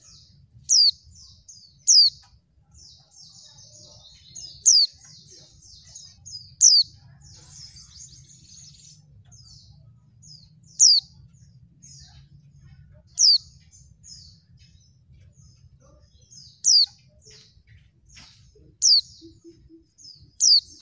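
Female white-eye (pleci) giving loud, sharp down-slurred call notes, nine in all, spaced one to four seconds apart. Softer quick twittering fills the gaps between them.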